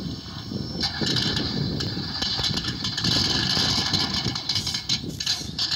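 Electric RC scale crawler (HBP RGT 86100) driving slowly over dirt: its motor and gearbox whine comes and goes with the throttle, over a steady low rumble from the tyres and chassis.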